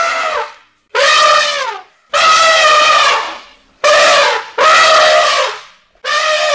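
Elephant trumpeting: a run of about six loud, brassy calls at much the same pitch. Each lasts about a second and dips in pitch as it ends, with short gaps between them.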